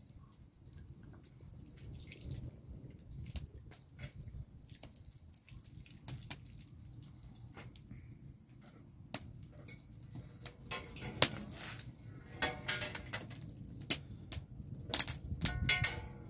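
Water dripping and trickling off a whole raw fish being rinsed by hand into a round metal tray. Scattered drips at first, then louder splashing and clatter on the metal tray in the last several seconds.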